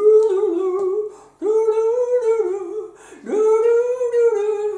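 Three long, high held vocal notes, the first gliding up into its pitch, each ending before the next begins.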